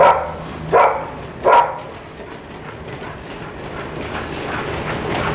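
A dog barks three times in quick succession, then the non-motorized slat-mill dog treadmill rumbles steadily under the running dog, slowly growing louder.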